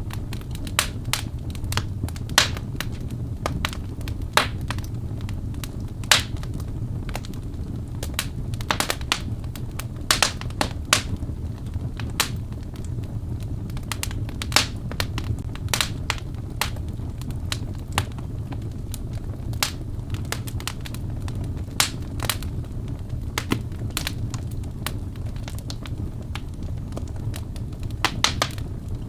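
Wood fire burning: irregular sharp crackles and pops, some loud, over a steady low rumble of the flames.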